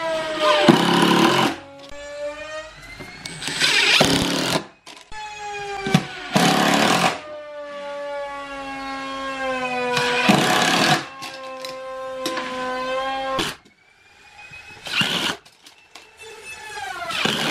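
Makita cordless impact driver driving screws into plywood. The motor whine sags in pitch as each screw takes load. About six one-second bursts of rapid hammering come as the impact mechanism engages to seat the screws.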